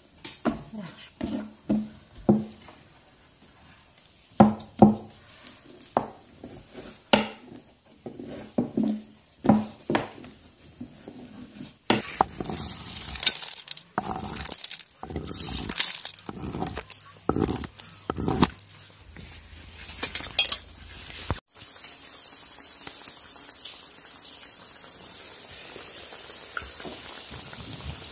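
A run of sharp knocks and taps on a wooden dough board, then from about twelve seconds in a quicker series of cracks as almonds are cracked open on a tree stump. After a sudden cut a little past twenty seconds, strips of dough frying in hot oil in a black pan, a steady sizzle.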